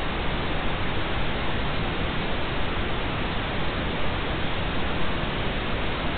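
Steady, even hiss of static on the broadcast sound, with no tone, rhythm or breaks.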